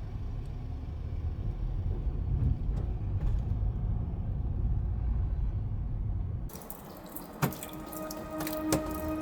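A car's low driving rumble, then an abrupt cut about two-thirds of the way through to rain falling steadily, with scattered drips.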